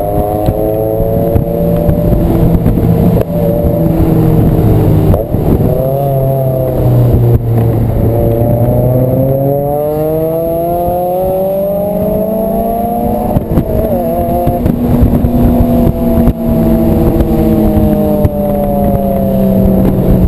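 Honda S2000's four-cylinder engine driving along a winding road: its pitch falls, sits low for a few seconds, then climbs and holds high before easing down near the end, with brief breaks about five and thirteen seconds in. Wind rushes through the open-top cabin.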